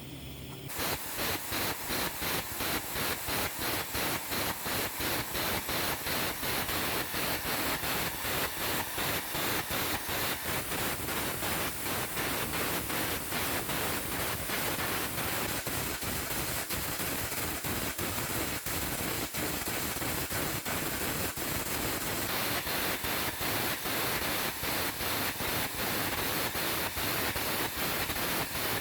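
Air carbon arc gouging along the middle of a weld joint: the arc of the carbon rod crackling and the compressed-air jet hissing as it blows out molten metal, starting about a second in and running on steadily with a rapid, even flutter.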